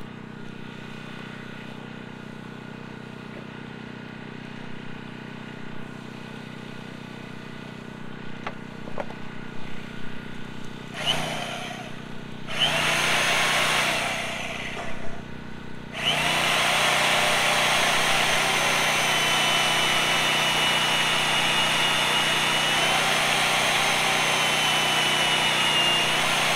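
Bauer portable band saw cutting a steel beam: it runs in two short bursts around the middle, then runs steadily through the cut for the last ten seconds, with a thin high whine from the blade in the steel.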